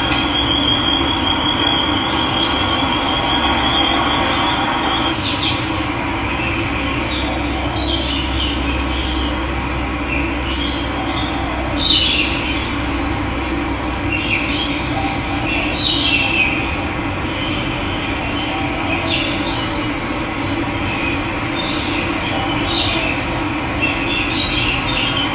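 Running water rushing steadily, with wild birds chirping over it; the loudest calls come about twelve and sixteen seconds in, and a thin high trill sounds in the first few seconds.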